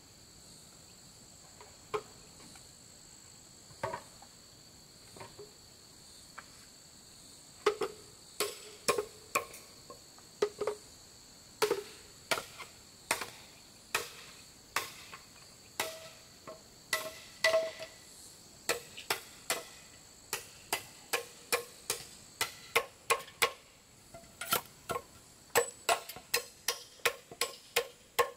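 Repeated sharp knocks of hand-tool work, a few scattered at first, then a steady run of about two a second from roughly a quarter of the way in. Underneath is a steady high-pitched chorus of tropical insects.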